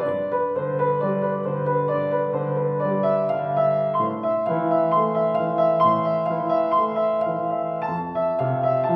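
Solo grand piano playing a slow, lyrical melody over long sustained chords, with the harmony changing about four seconds in and again near the end.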